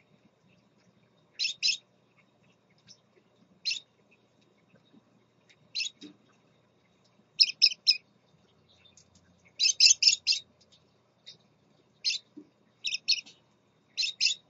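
Scarlet-chested parakeets chirping: short, high chirps in quick clusters of two to five, repeating every one to two seconds.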